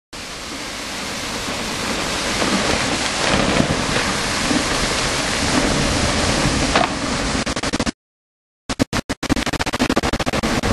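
Snow-and-ice avalanche coming down a frozen waterfall: a steady rushing rumble that builds over the first couple of seconds. About three quarters of the way through it breaks into rapid stutters and a short full dropout, the glitches of a recording recovered after the camera battery died.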